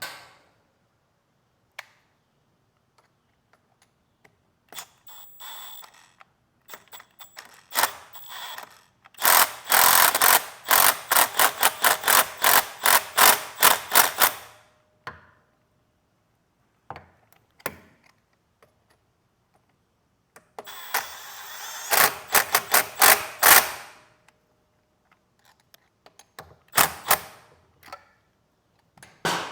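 Hand ratchet clicking in quick runs of several seconds, twice, with scattered tool clinks between, as bolts go back into a Harley-Davidson Road Glide's transmission case.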